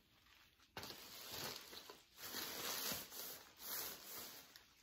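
Cloth rustling as a costume dress is lifted out of a cardboard box and handled, starting about a second in and coming in three or four swells.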